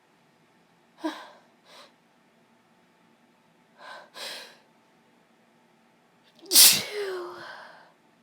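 A woman sneezing while ill: a few short catching breaths, then one loud voiced sneeze about six and a half seconds in that falls in pitch and trails off.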